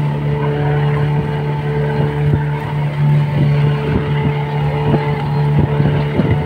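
Motorboat engine running at a steady pitch, with water splashing against the hull as the boat moves along.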